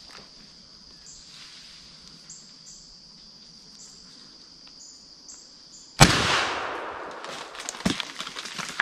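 .410 shotgun fired once, about six seconds in, up into the treetops at a squirrel: one sharp, loud report that rings away over about a second. Before it, insects buzzing steadily with a faint repeating chirp; after it, rustling and crunching in dry leaves.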